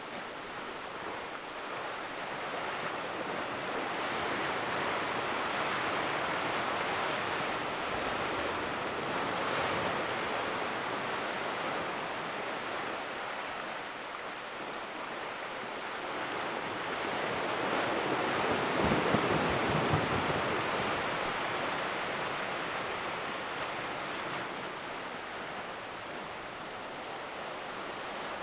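Sea waves surging in and churning against the shore, swelling and easing, with the biggest surge and a few low thuds about two-thirds of the way through.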